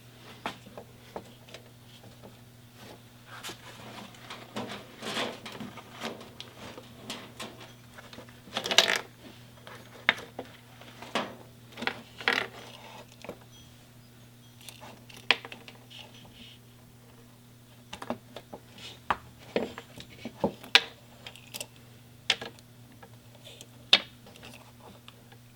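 Irregular clicks, taps and light knocks of small metal parts and hand tools being handled while cables are fitted into a BMW R1100RT's throttle and choke cable distribution box. There is a short cluster of clatter about nine seconds in, and a few sharp single clicks later. A steady low hum runs underneath.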